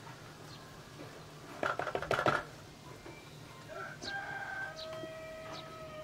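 Chickens clucking briefly about two seconds in. Then a rooster crows, one long drawn-out call held for about two seconds.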